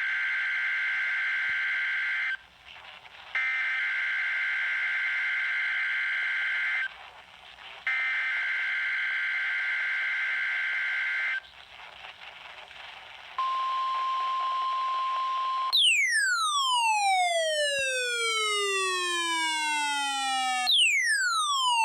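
NOAA Weather Radio Required Weekly Test signal: three identical bursts of warbling digital SAME header data tones, each about three and a half seconds long and about a second apart, marking the start of a weekly test alert. These are followed by a steady tone for a couple of seconds, then two long falling sweeping tones.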